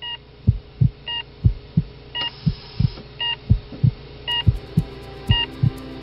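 Heartbeat sound effect, a double lub-dub thump about once a second, with a short electronic heart-monitor beep on each beat over a steady low hum.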